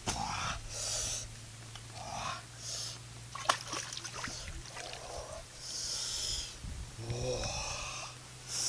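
A man breathing hard in short, hissy puffs after hauling a heavy basket of fruit, with a sharp knock about three and a half seconds in and a brief grunt near the end.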